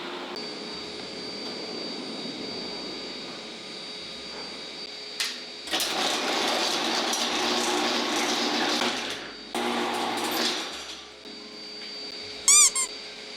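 Chamberlain LiftMaster garage door opener running as it moves the door, answering a newly programmed generic remote. The motor starts about six seconds in and runs for about four seconds. Near the end come three short, loud beeps.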